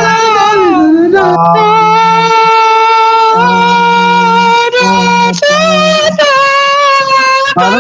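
Loud singing of long held notes, the pitch wavering on some of them, with a lower steady note coming in and out underneath.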